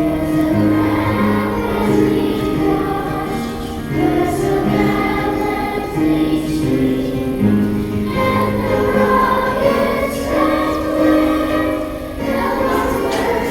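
A choir singing a song in held notes of about a second each.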